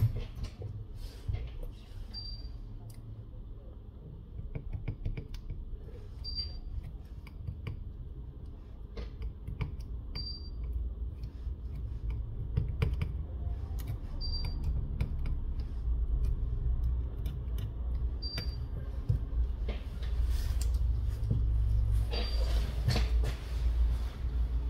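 Small clicks and taps of tweezers and fingers placing and pressing strips of double-sided adhesive tape onto a phone's battery bay, over a steady low hum. A short high beep repeats about every four seconds.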